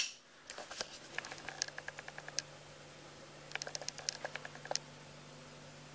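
Two clusters of faint, quick light clicks and ticks from a handheld camera being handled and moved, over a faint steady low hum.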